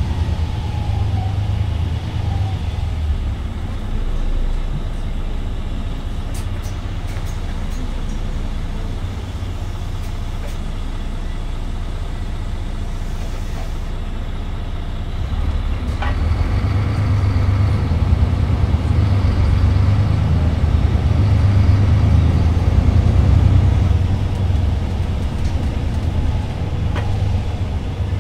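VDL Citea SLE-120 city bus's DAF PR183S diesel engine heard from inside the passenger cabin, running low and steady, then louder from about halfway as the bus accelerates, easing off near the end.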